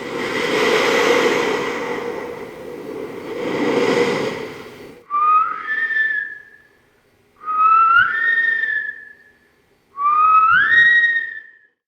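A rushing noise that swells twice, then three rising whistles, each about a second and a half long, gliding up and holding at the top.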